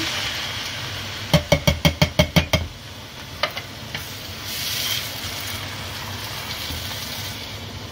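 Tinned chopped tomatoes hitting hot oil and onions in a frying pan with a sizzle, then being stirred in with a spatula, the pan sizzling steadily. About a second in comes a quick run of about nine knocks, some seven a second, with one more knock shortly after.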